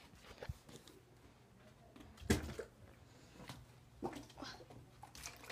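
Handling noise from a phone being moved about: scattered rustles and knocks, with one heavier thump about two seconds in.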